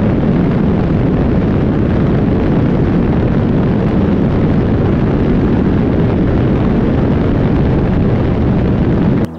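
Loud, steady rush of wind buffeting a camera mounted on a Forpost-R drone's wing in flight; it cuts off abruptly near the end.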